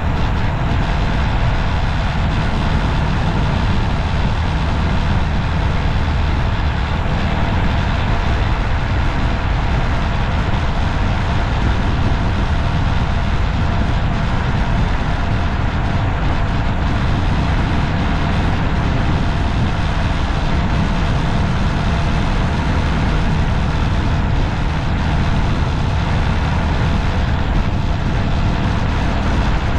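Steady vehicle and road-traffic noise from driving along a city street: a deep, even rumble with no distinct single event.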